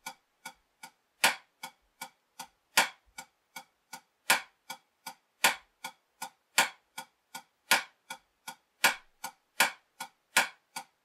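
A wooden drumstick strikes a drum practice pad in slow, even single strokes, about two and a half a second. These are soft taps and louder accent strokes, played left-handed in traditional grip. The accents fall on every fourth stroke, then every third, then every other stroke near the end: an 8-4-3-2 tap-accent pattern.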